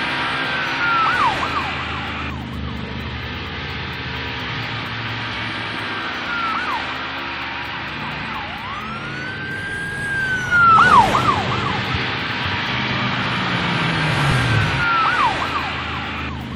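Police car siren wailing: slow rising sweeps that hold high and then drop sharply, repeating every four to five seconds over a steady background rumble.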